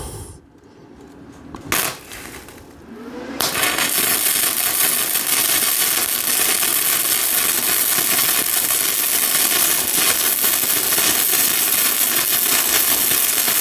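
Flux-core wire-feed welding arc from a Yeswelder DP200 laying a bead on an old steel file. It strikes about three seconds in and crackles steadily from then on, throwing spatter. There is a single sharp click shortly before it.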